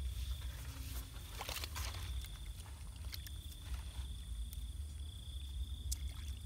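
Hands splashing and scooping in shallow muddy water around a woven bamboo basket trap, with scattered clicks and a cluster of splashes about a second and a half in. Behind it a steady high insect drone and a low rumble.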